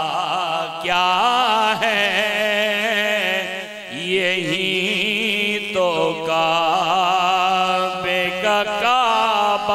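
A man's voice singing a naat in Urdu, drawing out a long melismatic phrase in wavering held notes with vibrato, broken into several breaths. A steady low tone holds underneath.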